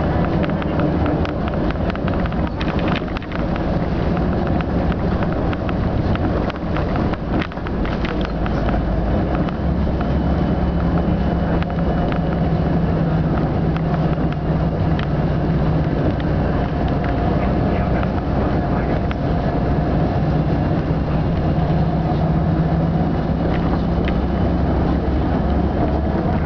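Bus engine running and tyre noise, heard from inside a moving bus: a steady low drone whose engine note grows stronger and steadier about ten seconds in, with scattered clicks and rattles in the first several seconds.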